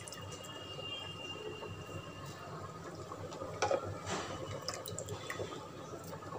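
Thick rajma (kidney bean) curry bubbling as it simmers uncovered in a pressure cooker, cooking down to thicken: a steady soft burble with a few sharper pops about halfway through.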